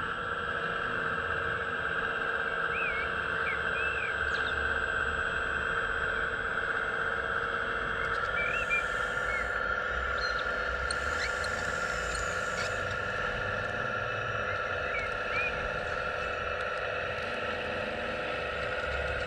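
Hydraulic pump of a 1:15-scale RC Hitachi ZX135US excavator running with a steady whine while the model works its boom and tracks off a trailer; the pitch shifts slightly about eight seconds in. Two brief hisses come about eight and eleven seconds in, and birds chirp now and then.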